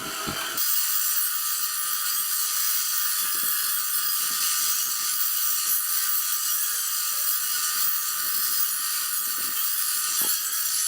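A tool running with a steady high-pitched whir, starting about half a second in.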